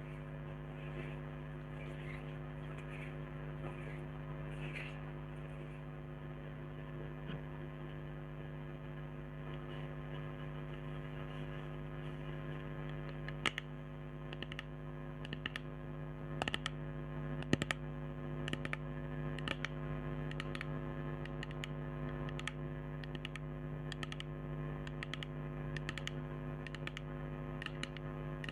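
Steady electrical hum from an old microphone, with fingernails tapping on cosmetic containers. The taps are sharp, irregular clicks that begin about halfway through and continue.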